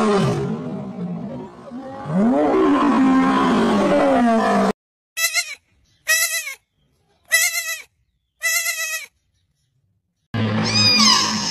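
A long, loud animal call with a rising-and-falling pitch, followed by four short, high bleats about a second apart, then the start of a different animal call with a falling pitch near the end.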